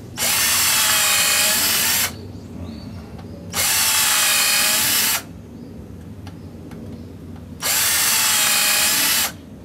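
HiKOKI 10.8 V cordless drill-driver running in three steady bursts of about two seconds each, its motor whining as it bores pilot holes into a block of wood.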